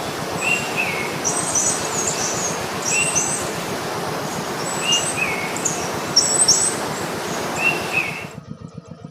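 Outdoor ambience: a steady rushing noise with a bird calling in short chirps about once a second. It all cuts off suddenly about eight seconds in, leaving a much quieter background.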